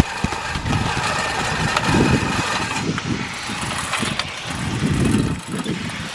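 Manual reel lawn mower pushed through tall grass: the spinning reel blades whir and snip as they cut, surging unevenly with each push.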